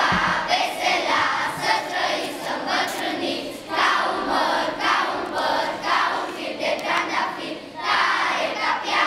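Large group of children's voices in unison, loud, in phrases about a second long with short breaks between them.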